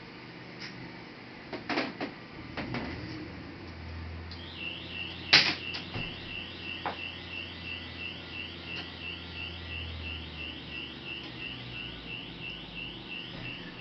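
Clicks and knocks of laptop parts being handled during disassembly, the loudest a sharp snap about five seconds in. From just before that snap, a high chirp repeats a little over twice a second, over a low hum that fades out near the end.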